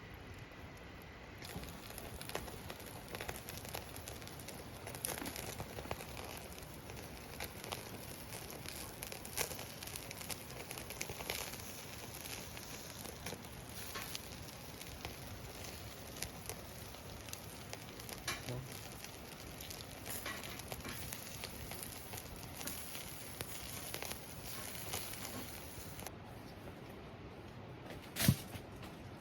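Wood campfire in a fire-pit stand crackling steadily, with scattered pops throughout and one sharp knock near the end.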